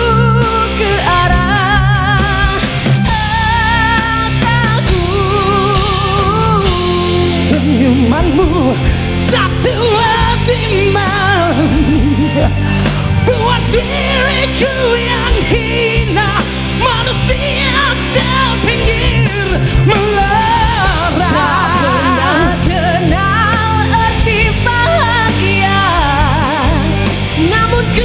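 A Malay pop-rock song: a singer's voice with wide vibrato over a full band.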